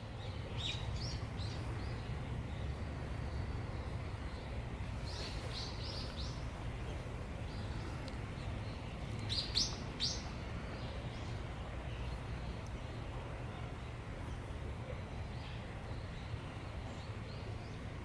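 Small birds chirping: short, high calls in three brief clusters, the loudest about nine and ten seconds in, over a steady low rumble.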